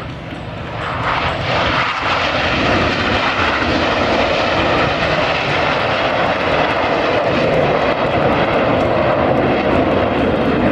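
Airplane engine noise swelling over the first two seconds, then staying loud and steady as an aircraft passes low overhead.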